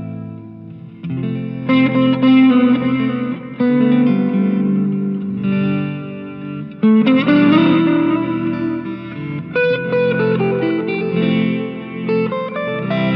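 Electric guitar through effects pedals and a Fender Tonemaster Deluxe Reverb amp, playing chords that are struck every second or few and left to ring out.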